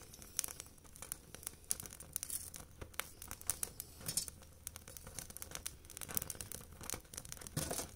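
Kindling burning under charcoal in a shichirin clay grill, crackling with many small irregular snaps and pops as the charcoal is being lit.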